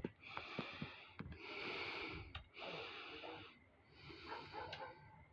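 A person breathing heavily close to the microphone, one hissy breath about every second, with a few light knocks.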